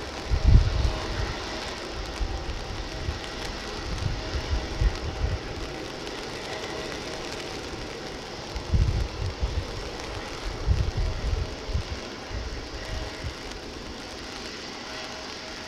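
Steady hiss of heavy rain, with wind buffeting the microphone in low thumps several times and a faint steady hum underneath.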